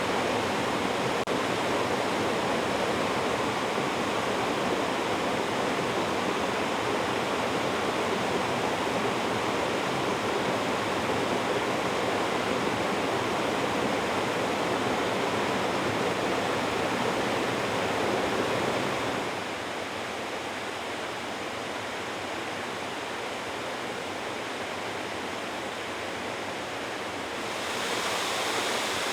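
Tall plunge waterfall with a steady rush of falling water. About two-thirds of the way in, the rush turns quieter and duller for several seconds, then returns to full strength.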